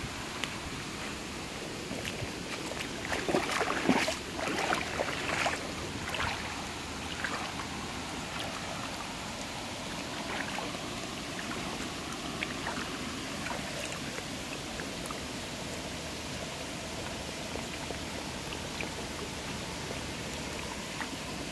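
A Jackapoo puppy splashing as it wades through shallow stream water, with a burst of louder splashes a few seconds in, over the steady sound of running water.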